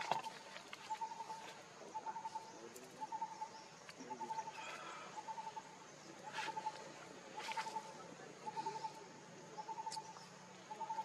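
A wild animal's short trilled call, repeated steadily about once every three-quarters of a second, over a hazy outdoor background with scattered faint clicks and rustles.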